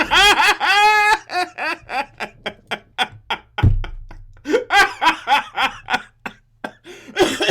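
A person laughing hard: a high-pitched, squealing laugh that breaks into a quick run of short laughs. There is a low thump about three and a half seconds in.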